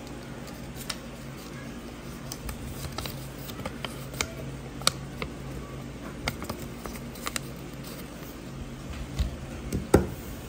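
Hand-drawn paper cutouts being handled on a wooden tabletop: scattered light taps and paper rustles, with the loudest tap about ten seconds in, over a steady low hum.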